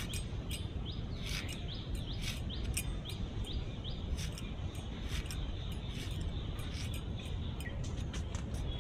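A bird calling over and over with short rising chirps, about two or three a second, that stop about halfway through. Underneath, sharp clicks of fresh ginger being sliced into strips on a boti blade, over a steady low rumble.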